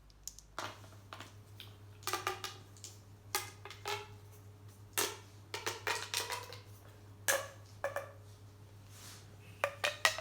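Plastic fidget pop tubes being stretched and squashed, giving an irregular string of sharp pops and clicks, some with a brief ringing tone.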